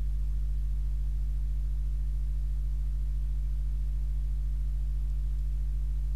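A steady low electrical hum made of several low tones that do not change, with nothing else over it.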